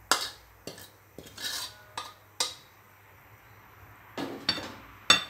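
Metal spatula scraping and knocking against a wok while stir-fried noodles are dished out. It makes a series of sharp metallic clanks, some of them ringing, with a longer scrape about a second and a half in.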